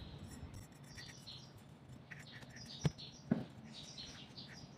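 Two sharp knocks about half a second apart, about three seconds in, as the metal bearing packer and the trailer wheel hub are handled on the workbench, with faint bird chirps throughout.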